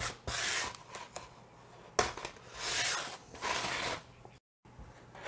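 Blue masking tape being pulled off the roll in a few rasping pulls and torn off with a sharp snap, then pressed and rubbed down along the edges of a styrofoam box.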